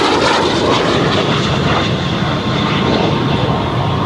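Aero L-39 Albatros jet trainer's single turbofan engine making a low pass: a loud, steady rushing jet noise.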